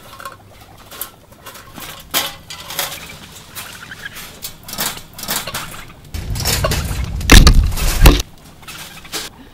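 Wire cage traps rattling and clanking, with repeated short metal clicks as the traps are set down and their doors handled. About six seconds in, a loud, close rumbling and knocking lasts about two seconds as something brushes over and covers the camera.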